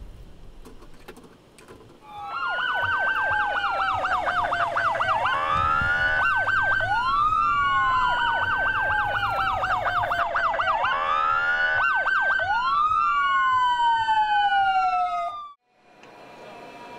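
Police patrol car's electronic siren on a code 3 response, starting about two seconds in and switching between a slow rising-and-falling wail and a rapid yelp, twice over. It cuts off suddenly near the end.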